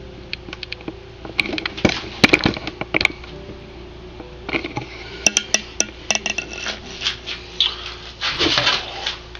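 Wooden pallet boards being handled and shifted about: irregular knocks and clicks of wood on wood, with rubbing and scraping between them.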